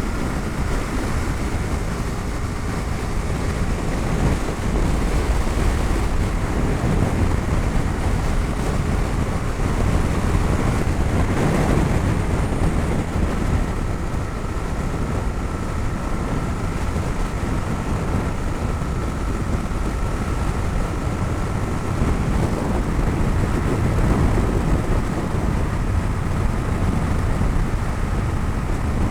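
Bajaj Dominar 250's single-cylinder engine running steadily at highway cruising speed, mixed with wind rush and road noise, heard from the pillion seat.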